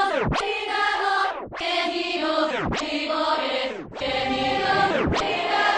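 Music with sustained chanted or choir-like voices, cut by a falling swoop that repeats about every second and a quarter.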